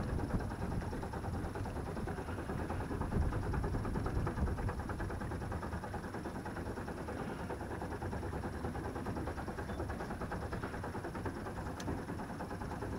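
Sailboat's inboard auxiliary engine running steadily at a low, even pace as the boat motors under power with its sails furled.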